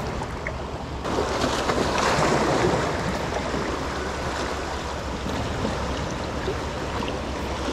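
Small waves washing against the stone blocks of a jetty, growing louder for a couple of seconds about a second in, over a steady low wind rumble.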